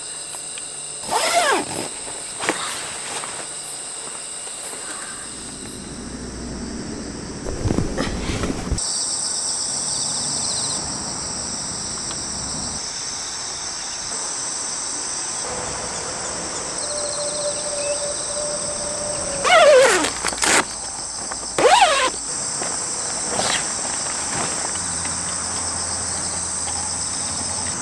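Insects chirring steadily outdoors in several unbroken high-pitched bands. About two-thirds of the way through come two short calls that slide down in pitch, the loudest sounds here.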